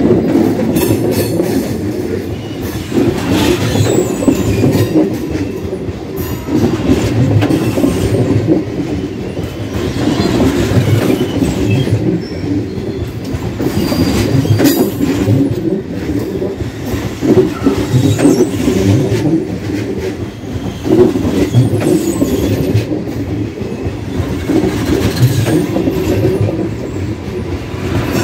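Trenord push-pull regional train running past at close range: a heavy rumble of coaches on the rails, with wheels clattering over rail joints and pointwork in a pulsing rhythm.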